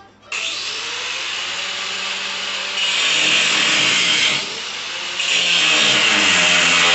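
Handheld angle grinder switched on just after the start, then cutting into steel frame tubing. The cut grows louder as the disc bites, eases for a moment about four seconds in, then bites again.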